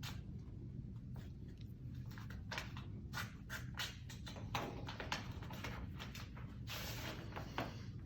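Paper being handled: sheets rustling and shuffling, with small irregular knocks and taps on a table, over a steady low room hum.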